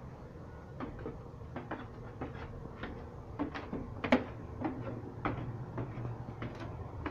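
A string of short, irregular knocks and clicks from handling as the camera is carried and moved about. The sharpest knock comes about four seconds in.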